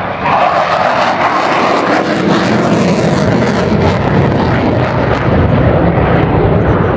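Sukhoi Su-22 fighter-bomber's Lyulka AL-21F-3 turbojet, a loud continuous jet roar as the aircraft pulls up and climbs away. The sound deepens into a low rumble after the first second or two.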